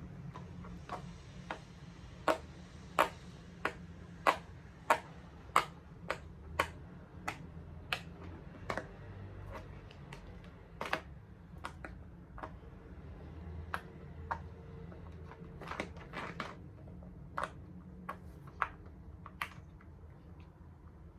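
Large silicone pop-it fidget toy, its bubbles pressed one after another, each giving a sharp pop at about one or two a second. The pops are loudest in the first few seconds, over a steady low hum.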